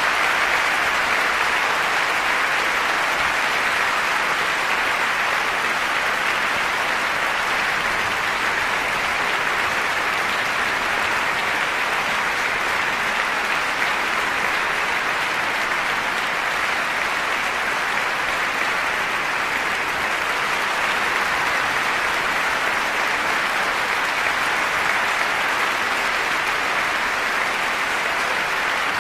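Concert hall audience applauding, a steady, dense clapping with no music.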